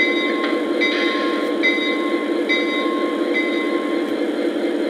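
Lionel Legacy O-scale Norfolk Southern SD90MAC model locomotive running, its onboard sound system playing a steady diesel engine rumble. A short ringing tone repeats a little under once a second.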